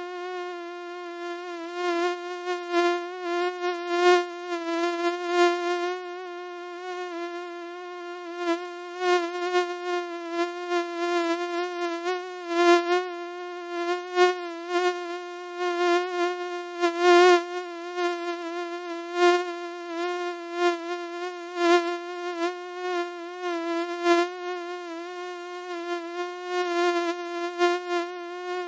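Mosquito whine: one steady, slightly wavering high buzz that swells louder and fades back again and again, as when a mosquito flies near the ear.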